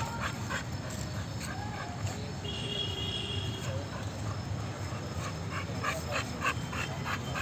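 Two dogs at rough play, one an American Bully, giving short whines and whimpers, with a higher whine held for about a second near the middle. Quick scuffling strokes run over a steady low hum.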